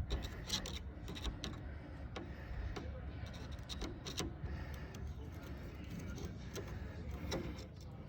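Scattered light clicks and clinks of objects being handled, irregular and a few a second, over a steady low rumble.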